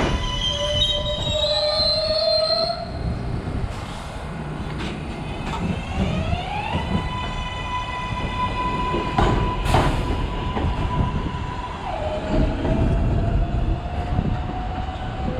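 R188 subway train moving through the station, its electric propulsion whining and gliding up and down in pitch several times over a steady low rumble. A few sharp clacks of wheels over rail joints come in the middle.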